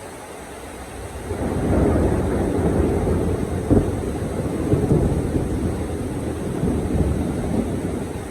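A long rumble of thunder over steady heavy rain, building about a second in, with a couple of louder cracks in the middle, then slowly rolling away.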